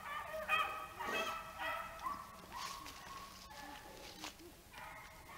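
Pack of beagles baying on a rabbit's track, several voices overlapping in quick repeated bawls, with a couple of sharp clicks in the second half.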